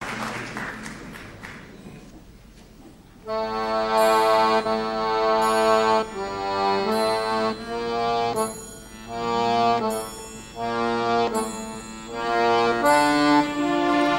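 Orchestra playing the instrumental introduction of a song: about three seconds in, a melody of held notes in short phrases starts, after the hall noise fades.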